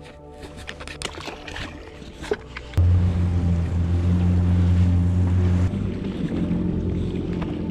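Jet ski engine coming on suddenly about three seconds in and running hard with a steady low drone, then easing to a lower steady run for the last couple of seconds. Before it starts, light clicks and rattles of gear being handled.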